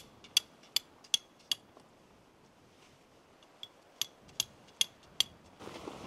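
Sharp, light clicks at an even pace of about two and a half a second: five, then a pause of about two seconds, then five more. Just before the end a steady rustling noise begins.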